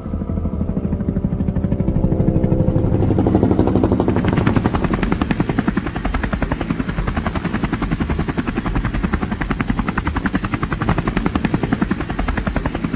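Helicopter rotor blades chopping in a fast, even beat. It grows louder over the first few seconds, then holds steady as the helicopter hovers.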